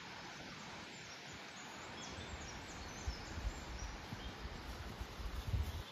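Outdoor ambience of wind in palm trees: a steady hiss of moving leaves with a few faint, short bird chirps, and low rumbles of wind on the microphone that grow stronger near the end.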